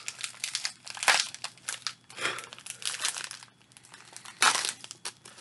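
Crinkly plastic snack wrapper being crumpled and torn at, partly with the teeth, in a struggle to get it open: a run of sharp crackles, with a louder tearing burst near the end.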